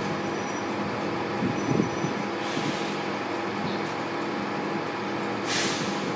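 Class 91 electric locomotive standing at the platform, its onboard equipment and cooling fans humming steadily with several held tones. A short hiss of air comes about five and a half seconds in.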